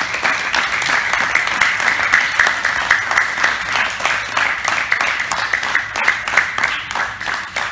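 A group of people applauding, many hands clapping together in steady applause.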